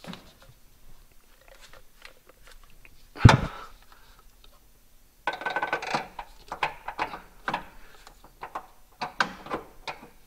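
Metal clinks and rattles of a car's front strut being worked into place against the lower control arm and its mount hardware. One sharp heavy knock comes about three seconds in, then a busy run of short clicks and clatters from about halfway on.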